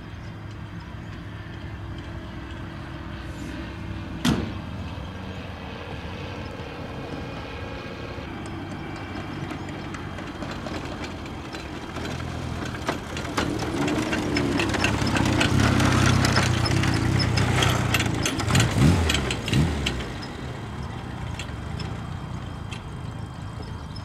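Avro Anson's twin Armstrong Siddeley Cheetah radial engines running, growing louder and rougher through the middle and easing off near the end, with a single sharp click about four seconds in.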